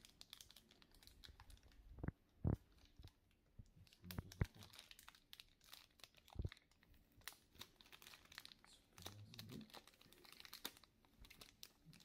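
Faint crinkling of thin clear plastic bags as hands handle and open them, with a few louder soft knocks, the loudest about two and a half and four and a half seconds in.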